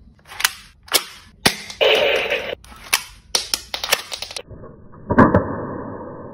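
Sharp plastic clicks and snaps of a toy Uzi being handled and its bolt worked, with a short rasp about two seconds in. About five seconds in a louder clack is followed by a steady ringing tone that slowly fades.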